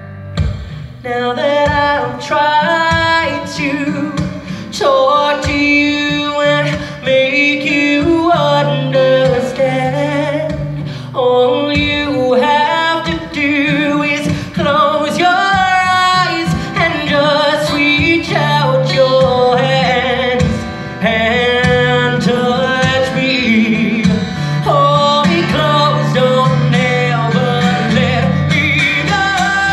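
Male voice singing a ballad live into a microphone, with long held notes over a strummed acoustic guitar.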